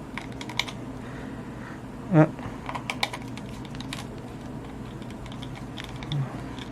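Scattered light clicks and taps of a small screwdriver working screws into a plastic computer mouse shell, with the plastic parts being handled.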